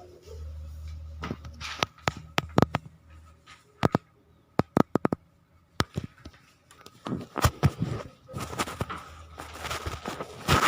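Handling noises: scattered sharp clicks and knocks, with a low hum in the first few seconds and a stretch of rustling in the last few seconds.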